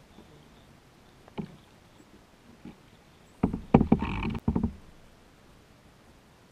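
Kayak paddling: a single knock about a second and a half in, then a loud cluster of knocks with splashing from about three and a half to nearly five seconds in.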